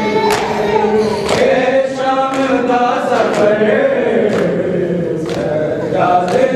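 A group of men chanting a noha together, with loud unison open-handed slaps on their bare chests (matam) falling about once a second in time with the chant.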